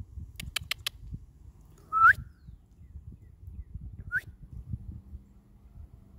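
Two short rising whistles from a person calling a dog: the first, about two seconds in, is the louder; the second comes about two seconds later. Before them there is a quick run of four sharp clicks.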